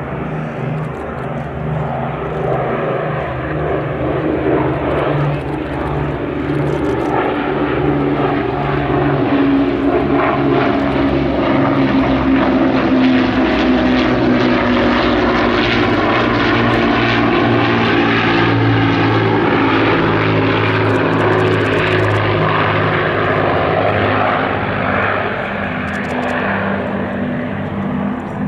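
Avro Lancaster and Avro Anson flying past in formation, their piston engines droning together. The sound swells as they approach, drops in pitch as they pass about halfway through, and then fades a little.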